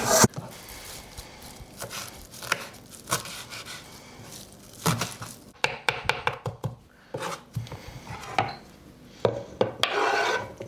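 Knife chopping fresh mint and parsley on a chopping board: irregular sharp taps, with quick runs of strokes about halfway through and again near the end.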